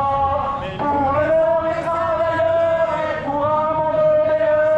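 Protest chanting: voices singing out long, held notes with short breaks between phrases.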